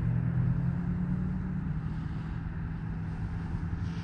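A steady low mechanical hum over an even hiss, like a motor running at a constant speed.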